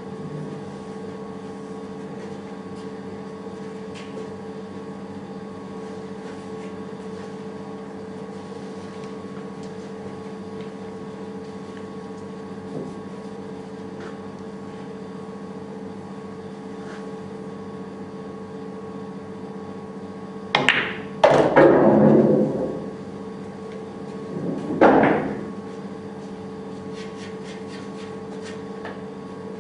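Billiard balls being struck: about two-thirds of the way in, a quick run of sharp clacks with a short rattle after them, then one more clack a few seconds later, over a steady room hum with faint ticks.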